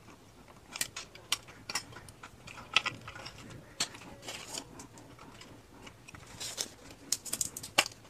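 Scattered light plastic clicks and taps from a CPU cooling fan being handled and fitted onto a motherboard, its push-pin feet being lined up with the four mounting holes. The clicks come irregularly, bunched early on, once around the middle, and in a quicker cluster near the end.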